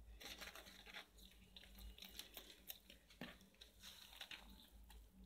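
Faint, irregular scraping and soft crunching of a plastic spoon stirring curd into dry flour and sugar in a plastic tub.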